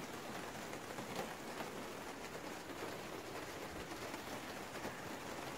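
Steady rain falling, with scattered single drops ticking.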